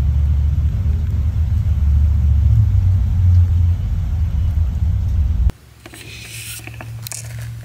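A deep, low rumble from a rainstorm outside, swelling and easing. It cuts off suddenly about five and a half seconds in, leaving a much quieter patter of rain with light ticks.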